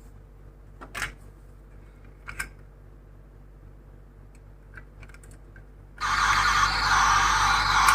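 A few scattered light clicks and taps of small plastic toy cars being handled. About six seconds in, a loud, steady rush of noise starts.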